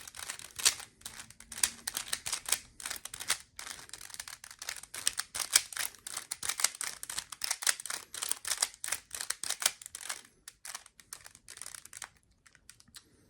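A Rubik's Cube being twisted by hand in quick runs of turns, with rapid plastic clicking and rattling of the layers as a move sequence is worked to put the last-layer corners in place. The clicking thins out and stops near the end.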